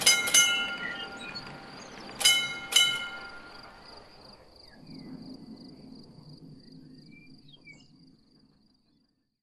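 Model level-crossing bell striking four times, in two quick pairs about two seconds apart, each strike ringing on, as the barriers rise. A faint steady high tone and a low hum follow and fade out.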